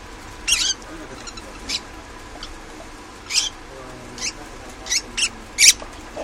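Lovebirds giving short, shrill chirps, about seven of them at irregular intervals, the loudest near the end.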